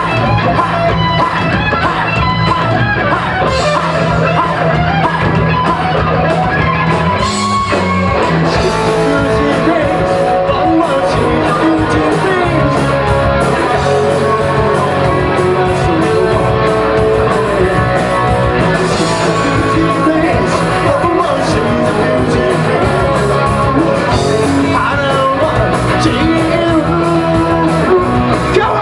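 A rock band playing live, loud and continuous: distorted electric guitars over bass and drums, with a voice or lead guitar line on top.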